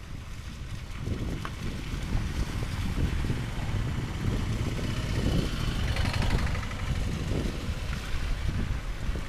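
Gusty wind rumbling on the microphone, an uneven low buffeting throughout, with a brighter rushing hiss swelling about five to seven seconds in.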